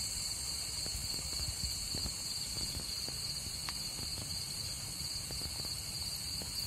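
Night crickets trilling steadily in a high, pulsing band, over a low rumble scattered with light ticks of falling rain.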